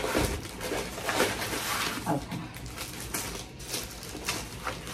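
Plastic protective wrap crinkling and rustling in irregular handfuls as it is pulled off a new handbag's handles.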